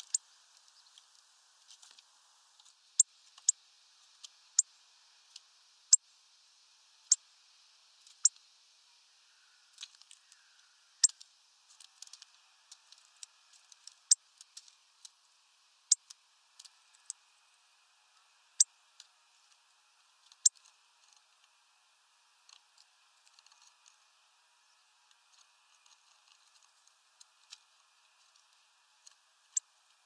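Hawfinch at a feeder giving a series of sharp, high ticks, roughly one every second or two, then fainter and more scattered from about twenty seconds in, with one more loud tick near the end.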